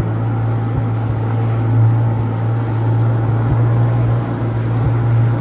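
Sea-Doo GTX jet ski engine running steadily under way across choppy water, a constant low drone.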